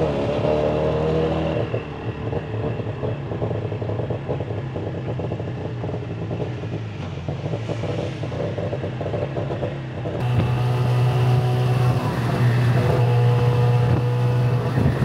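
Tuk-tuk engine running as the open three-wheeler drives along, with road and wind noise. It gets louder about ten seconds in.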